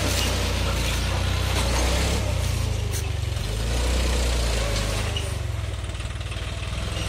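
Farm tractor's diesel engine running steadily under load as it pulls a disc harrow through banana stalks and leaves, with a few sharp clicks over the engine note.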